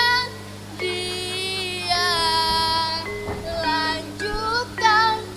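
A young female voice singing a slow solo melody in held notes that glide and waver, in short phrases with breaks between them, over a steady low hum.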